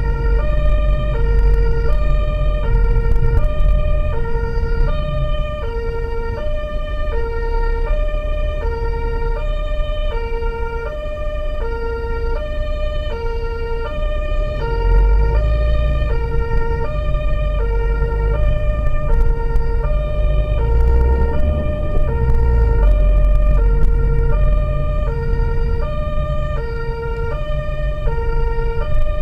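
Two-tone emergency siren (German Martinshorn) sounding without a break, stepping back and forth between a high and a low tone in a steady cycle. It is heard from inside the vehicle, over a steady engine and road rumble.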